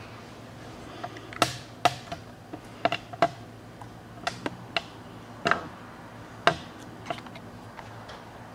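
Caso FastVac 500 vacuum sealer heat-sealing a bag seam: a low steady hum. About ten sharp clicks and knocks are scattered over it, the loudest about a second and a half and six and a half seconds in.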